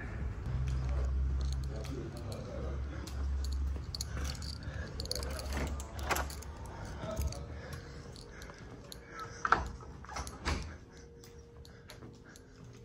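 Handling noise from a phone carried while filming: a low rumble for the first half, then three sharp clicks or knocks, one about halfway through and two close together near the end.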